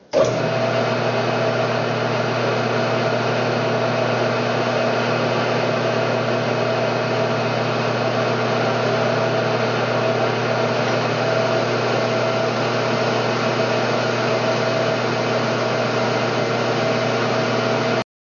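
Metal lathe running with its three-jaw chuck spinning a steel workpiece: a steady machine hum with several steady whining tones. It starts suddenly just after the beginning and cuts off suddenly near the end.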